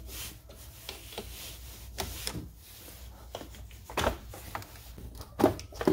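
Hand tools clicking and knocking against car battery terminal clamps as they are undone. The knocks come irregularly, with the loudest about four seconds in and again near the end.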